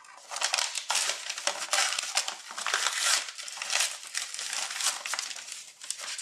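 Sheet of paper crinkling and rustling as it is peeled off a heat-fused coroplast joint and crumpled in the hands, with irregular crackles throughout.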